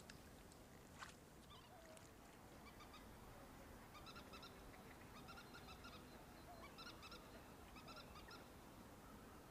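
Faint animal calls from about four seconds in: short pitched notes repeated in quick pairs and clusters. A few faint clicks come near the start.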